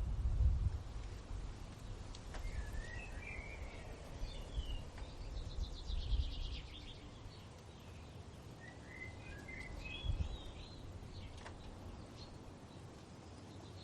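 Forest ambience with songbirds: two short warbling phrases, about six seconds apart, with a rapid trill between them. Under them runs a low rumble, loudest at the start.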